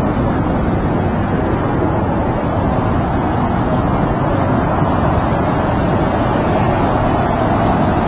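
Snowstorm wind blowing steadily around a tent, a deep, unbroken rushing noise.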